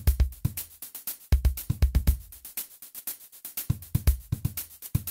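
Background music with a steady, fast drum-machine beat: quick ticks over regular deep kick-drum thuds.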